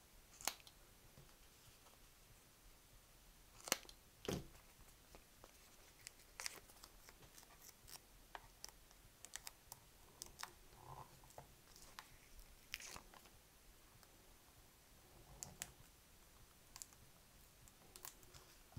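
Mostly near silence, broken by scattered faint clicks and crackles of hands peeling and pressing small self-adhesive foam pads onto a cassette recorder's circuit board. The biggest two come a few seconds in.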